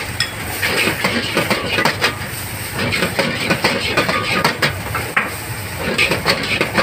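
Busy street-food market ambience: many irregular clicks and clatters over a steady hiss and a low rumble.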